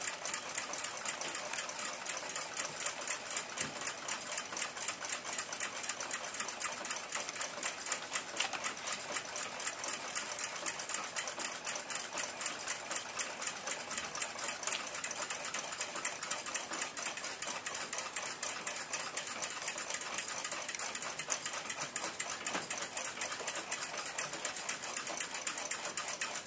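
Rapid, steady mechanical ticking at several beats a second, the even beat of a running timepiece's escapement.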